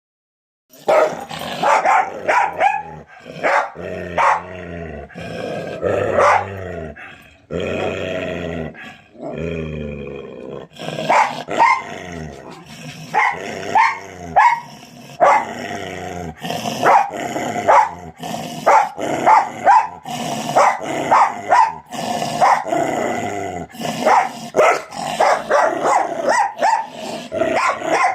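A dog barking over and over in short, sharp barks, with longer drawn-out growls between about four and ten seconds in.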